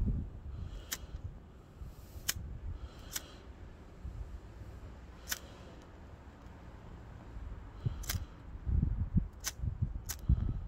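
A pocket lighter struck again and again, about seven sharp clicks of the spark wheel at uneven gaps of one to three seconds, failing to light the wood wool fire lighter. Low rumbling bursts come near the end.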